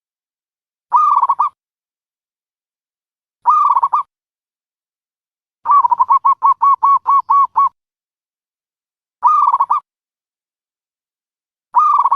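Dove cooing: short calls repeated every two to three seconds, with a quick run of about ten rapid coos in the middle.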